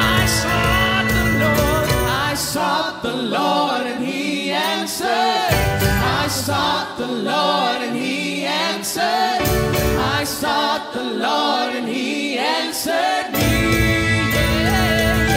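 Live worship band playing a praise song, with a group of singers singing together over keyboard, electric guitars and hand percussion. The bass drops away for stretches and comes back in fully near the end.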